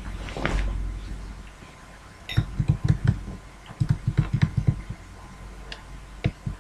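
Computer mouse scroll wheel clicking, in two quick runs of ticks about two seconds and four seconds in, with a few single clicks after.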